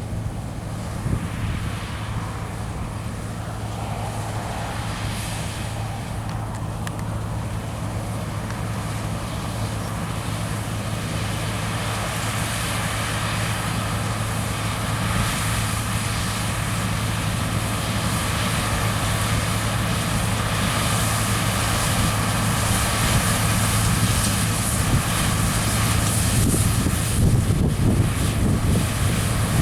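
New Holland TX64 combine harvester running steadily as it works, its engine hum growing gradually louder.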